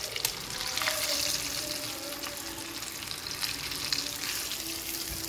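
Breaded chicken pieces sizzling steadily as they deep-fry in hot oil in an open pressure-cooker pan, with a piece being turned in the oil with metal tongs. This is the lid-off finishing stage of broasted chicken after pressure-frying, crisping the outer coating.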